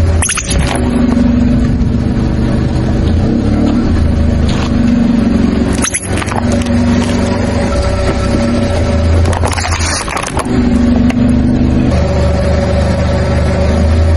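Car engine running low and steady as the car creeps forward over objects, with sharp cracks and pops of plastic things bursting under the tyre about half a second in, about six seconds in, and again around nine to ten seconds in.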